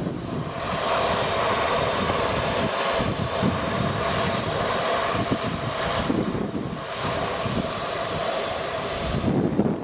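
A steady mechanical drone, with two steady tones held through it and wind noise on the microphone.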